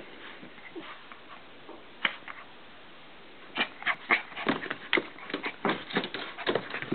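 Two puppies play-wrestling in a dog bed: scuffling with quick, irregular clicks and taps. It is mostly quiet at first, with a couple of clicks about two seconds in, then busy scuffling from about three and a half seconds in.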